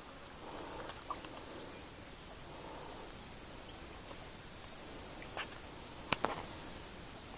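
Quiet handling of a large snakehead in shallow ditch water: a few sharp clicks and knocks, the loudest pair near the end, over a steady high whine and faint hiss.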